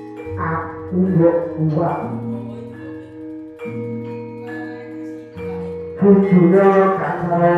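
Javanese gamelan accompaniment for a wayang kulit performance: bronze metallophone and gong tones ringing and sustaining, growing louder and busier from about six seconds in.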